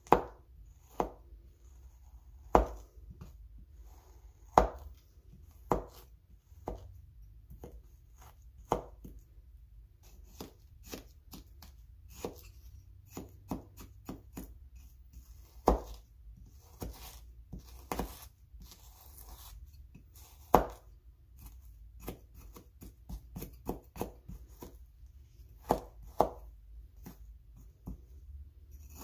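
Knife slicing through soft frozen acrylic paint cast as chicken wings, each cut ending in a sharp tap of the blade on the surface beneath. The strokes come irregularly, one to three a second, a few much louder than the rest.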